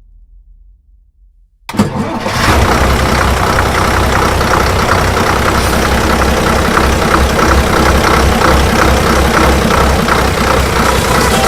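Indian bus's diesel engine starting with a sudden burst about two seconds in, then running steadily with a regular low throb.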